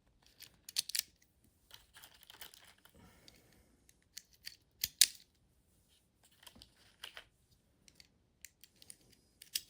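.25 ACP cartridges being pressed one by one into the small magazine of a Colt 1908 Vest Pocket pistol: scattered metallic clicks and light rattles, the sharpest about five seconds in.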